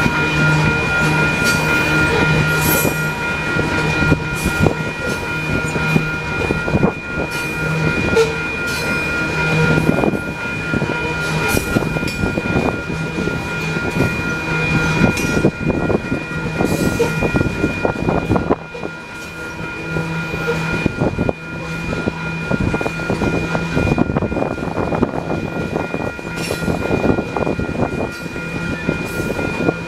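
Coal train cars rolling past on steel rails: a steady rumble with irregular clicking and clattering of wheels over rail joints. Steady high ringing tones run underneath throughout, from the grade crossing's warning bell.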